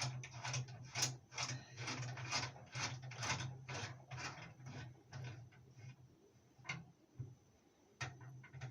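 Dishwasher part being screwed on by hand, its threads clicking like a ratchet about three times a second for several seconds, then a few single clicks, over a low steady hum.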